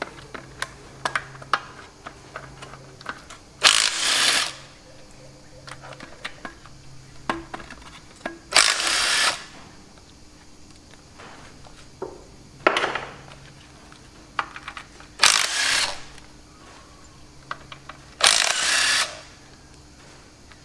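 Cordless impact driver undoing the bolts on a Chamberlain 9G tractor's front gearbox housing, running in five short bursts of under a second each. Between the bursts come small metallic clinks of bolts and tools being handled.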